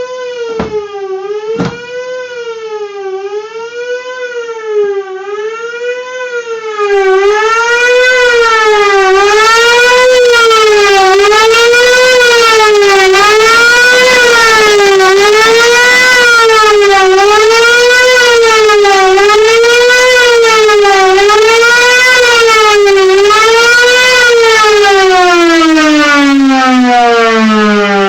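Federal Model 2 electromechanical tornado siren sounding as a building alarm, its pitch rising and falling about once every second and a half. About seven seconds in it gets much louder, and near the end the pitch winds steadily down as the siren coasts to a stop. Two sharp clicks come near the start.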